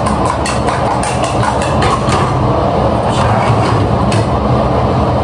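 A spoon clinking and tapping against a bowl and plate, about a dozen light clicks, most of them in the first two seconds, over a loud steady mechanical hum.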